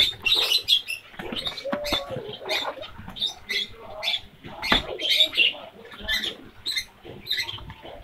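Bengalese finches chirping: many short, high squeaky calls in quick, irregular succession, with a few sharp clicks among them.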